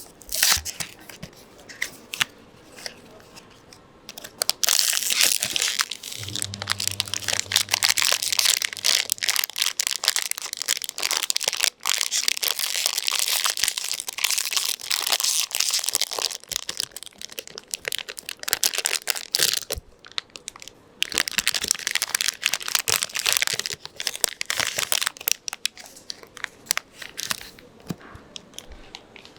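Blind-box packaging being handled and opened: plastic wrapping crinkling and tearing in long crackling stretches, with a pause in the middle. A low hum sounds for a few seconds early on.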